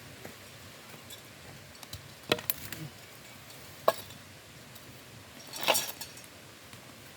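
Utensils and dishes being handled during a meal: a few sharp clinks and knocks, two close together and one more a second and a half later, then a short scraping rustle near the end.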